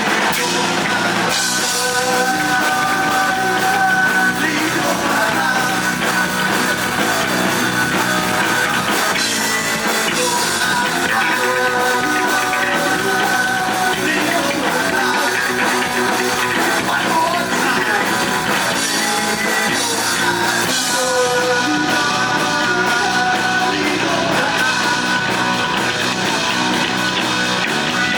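Live heavy metal band playing loud, with distorted electric guitar, bass and drum kit.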